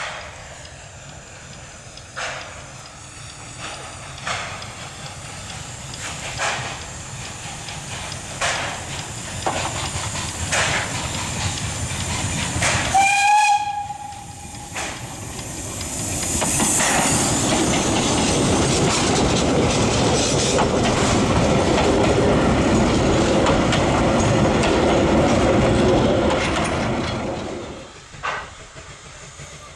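Px29 narrow-gauge steam locomotive approaching and passing with its train. Regular exhaust beats grow louder, then one short blast of the steam whistle about halfway. A loud rush of steam and clattering wheels follows as it goes by, and the sound drops away suddenly near the end.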